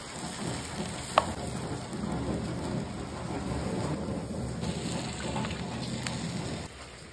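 Diced potatoes sizzling as they fry in a pan, a steady rain-like hiss. The metal spatula clinks sharply against the pan about a second in and again near the end as it stirs.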